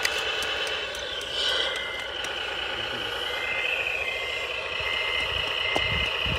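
Radio-controlled dumper truck with a Servonaut sound module running loaded: steady engine-like running noise with a high whine, and from about three seconds in a reversing beeper sounding roughly every three-quarters of a second.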